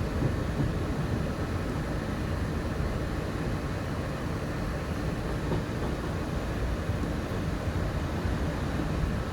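Walt Disney World monorail running along its beamway, heard from inside the car as a steady low rumble.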